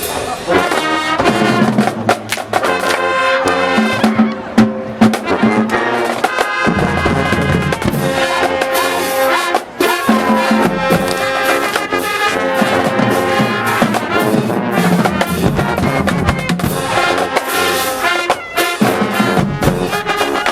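A high school marching band playing in the stands: brass (trumpets and trombones) over drums, with held notes and a short drop around ten seconds in.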